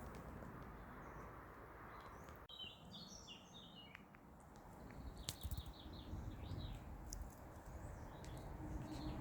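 Wild birds singing in woodland: a few short phrases of high chirping notes, one a quick row of repeated notes, over a faint low background noise.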